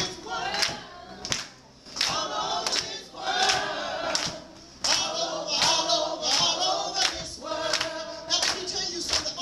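A church congregation singing together, with hand claps on the beat.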